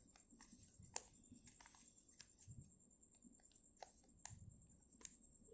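Faint crackles and small ticks of origami paper being folded and creased by hand, with a sharper click about a second in.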